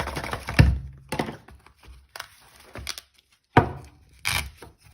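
Balisong (butterfly knife) being flipped: its handles clack against each other and the blade, first in a quick clattering cluster, then in separate sharp clacks every half second to a second, the loudest about three and a half seconds in.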